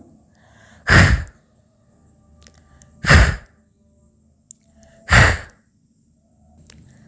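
A woman voicing the phonic sound of the letter H: a short, breathy "hh" exhalation with no voice behind it, three times about two seconds apart.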